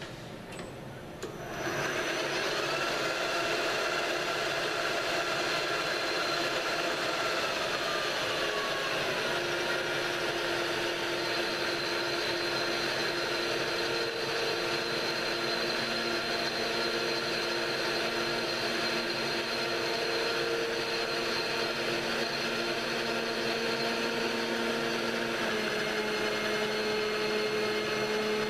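Metal lathe starting up about a second and a half in, then running steadily with a whine of several held tones while a form cutter is fed into the end of a knurled clamp-screw head, cutting chips.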